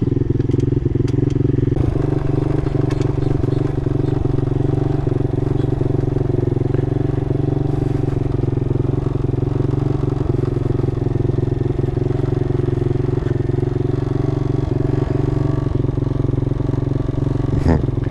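Mini motorcycle engines (Honda Monkey and Grom clone) running steadily while riding along. A brief rising whine comes near the end.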